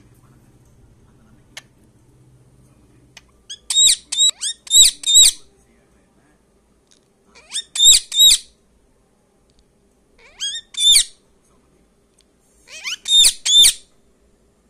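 Indian ringneck parakeet giving high-pitched calls in four short bursts of quick repeated notes, a few seconds apart.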